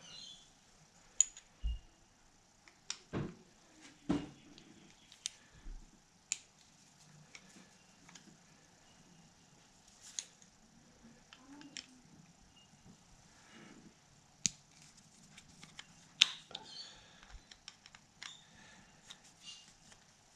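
Sporadic light clicks and knocks of a screwdriver and small metal parts as screws are undone on a Technics SL-1200 MK2 turntable's motor assembly, coming at irregular intervals.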